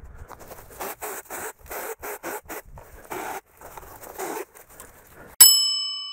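Rustling and crackling of cut brush and twigs being handled, in short irregular bursts. About five seconds in, a single bell-like ding chime strikes and rings out as it fades.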